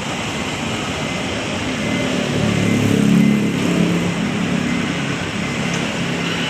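Steady traffic noise, with a vehicle engine swelling louder about two seconds in and easing off again a couple of seconds later.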